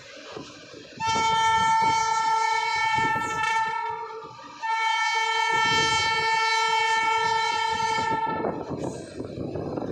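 Train horn sounding two long, steady blasts, the first starting about a second in and the second stopping near the end, with only a brief break between them. Under the horn, the passing coaches' wheels rattle over the rail joints.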